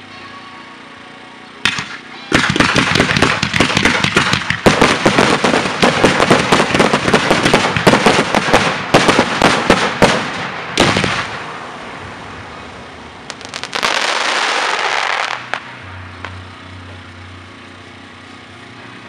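Display fireworks firing: a single bang about two seconds in, then about eight seconds of dense rapid-fire bangs and crackling from a barrage. One last bang near the eleventh second dies away, and a rushing hiss follows for about two seconds before it fades.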